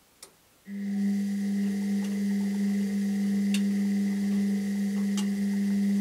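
Washing machine humming: after a click, a steady electric hum starts abruptly under a second in, holds at one pitch with a couple of faint ticks, and cuts off suddenly about five and a half seconds later.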